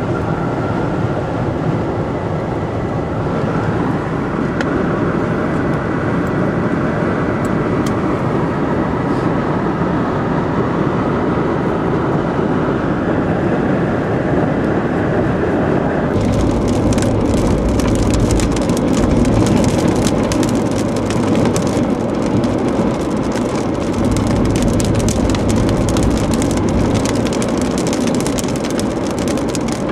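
A car driving with steady road and engine noise. About halfway through, rain begins pelting the car in a dense patter of drops, over a heavier low rumble.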